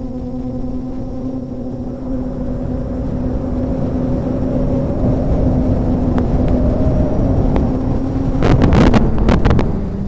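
DJI F450 quadcopter's motors and propellers humming steadily, heard from a recorder mounted on the aircraft, with wind rushing over the microphone. The pitch lifts briefly about halfway through, and a loud gusty rush of wind comes near the end as the quadcopter banks.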